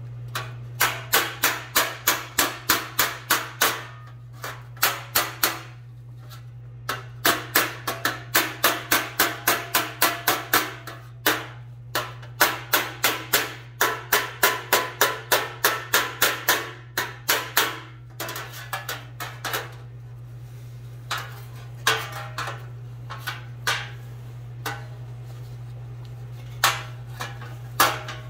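Steel body hammer striking a MIG-welded seam on thin automotive sheet metal directly against a flat steel dolly, in quick runs of about four ringing blows a second, with short pauses and lighter, sparser blows later on. The ring is the sign of the hammer landing directly on the dolly, on-dolly hammering that stretches the shrunken weld back into shape. A steady low hum runs underneath.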